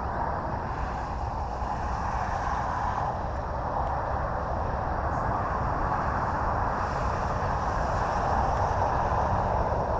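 Electric RC model airplane in flight: the T-28 Trojan's brushless motor and propeller running as a steady whirring drone that grows gradually louder as the plane comes nearer.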